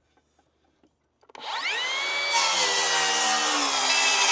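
A circular saw starts about a second in with a rising whine as the blade spins up, then cuts through a wooden board, its pitch sinking slightly under load.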